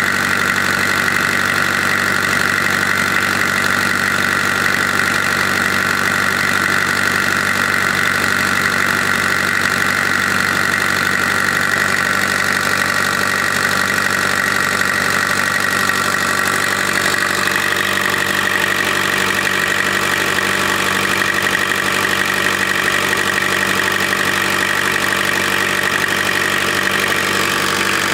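Kubota V1505 four-cylinder diesel engine running steadily, its radiator fan spinning.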